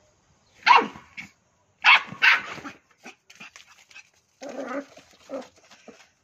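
West Highland white terrier puppy barking: one sharp bark about a second in and two more close together about two seconds in, then quieter short sounds.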